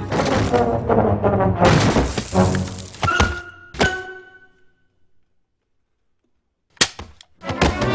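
Cartoon soundtrack: music with clattering thunks for the first few seconds, ending in two sharp ringing strikes that fade away. After a couple of seconds of silence, a sharp knock and a few clicks come near the end.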